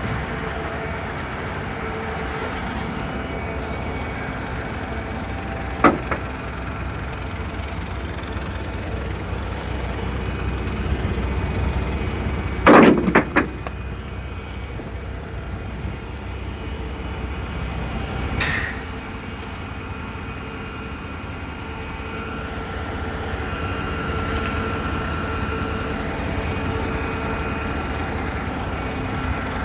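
A Schwing concrete pump running steadily, with sharp knocks every several seconds, the loudest a quick cluster of knocks near the middle. A short hissing burst comes about two-thirds of the way through.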